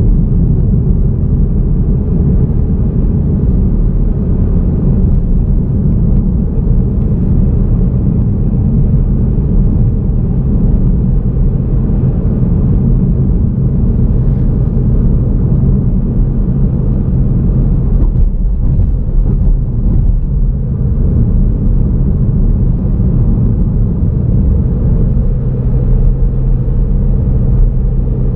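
A car driving along a road: a loud, steady low rumble of tyres and engine.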